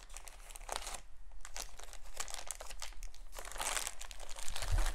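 Clear plastic bag crinkling as a lump of terra cotta air-dry clay is dug out of it, with a soft low bump near the end.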